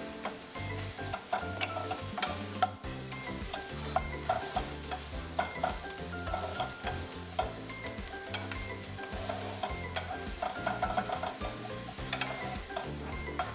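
Two wooden spatulas scraping and tapping against a skillet, with repeated sharp clicks, while diced serrano ham, onion and garlic sizzle in hot olive oil.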